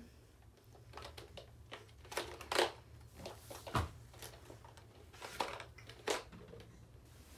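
A baby handling a plastic block toy with wheels, giving a handful of scattered knocks and clatters spread over several seconds.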